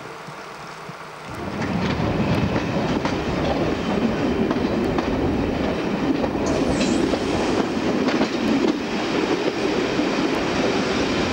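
Class 50 diesel locomotive's English Electric 16-cylinder engine working hard at close range, loud and steady. It comes in suddenly about a second in, over the quieter sound of a moving train.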